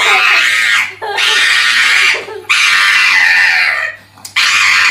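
A dog screaming in four loud, harsh cries of about a second each, with short breaks between them.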